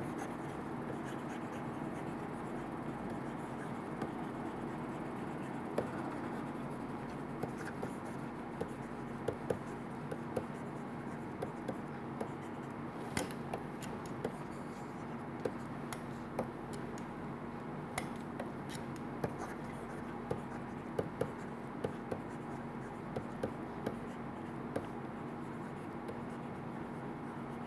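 Stylus tapping and scratching on a tablet as handwriting is written, heard as small irregular clicks over a steady low hum.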